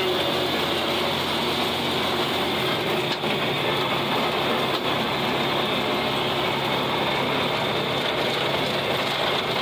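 John Deere 4020 tractor's six-cylinder engine running steadily under load while pulling a PTO-driven 1408 rotary cutter mowing grass. The cutter's rotary blades add to the running noise, with a couple of faint clicks.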